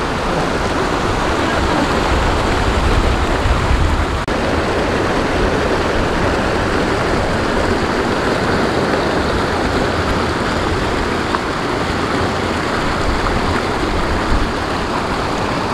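Steady rush of water pouring through a concrete weir channel.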